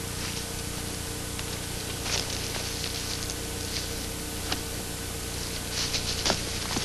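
Steady hiss and hum of an old, worn soundtrack, with scattered faint clicks and brief rustles, most of them near the end.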